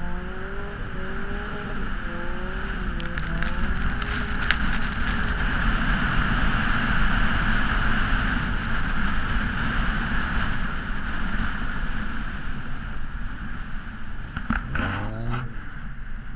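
Car engine running with its pitch wavering, soon covered by a loud, steady rush of wind and snow on the car's outside-mounted camera. A few sharp ticks come about three to five seconds in, and near the end the engine revs rise again.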